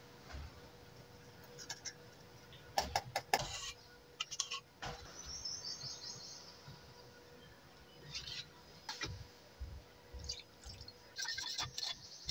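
Birds chirping in the background. A few sharp clicks and knocks come from a small metal paint tin being prised open and handled, about three and four and a half seconds in.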